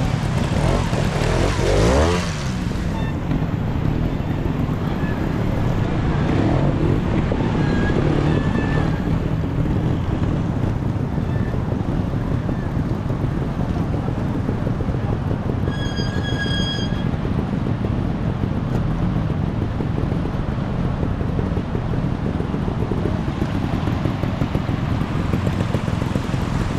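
Trials motorcycle engine revving in short bursts as the bike is ridden up a bank section, over the steady rush of a fast stream and wind. A brief high whistle-like tone sounds about two-thirds of the way through.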